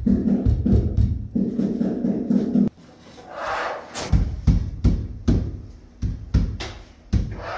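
Background music with a pulsing beat that cuts off abruptly a little under three seconds in, followed by a series of separate knocks and thumps.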